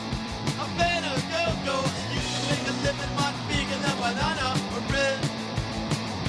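Fast rock music with driving drums, guitar and singing.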